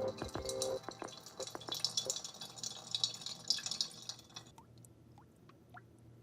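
Cold brew coffee draining through the valve of a Brim cold brew maker into its decanter: a fast pattering trickle of drops for about four seconds, then slowing to separate drips, each a short rising plink.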